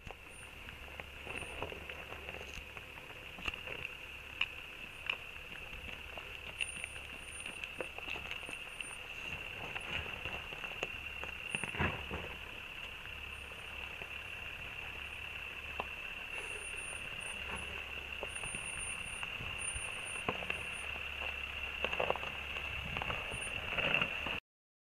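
Scattered clicks and crunches of rocks and gravel under a Jeep Grand Cherokee's tyres as it crawls down a rocky slope, over a steady high-pitched whine and a low rumble.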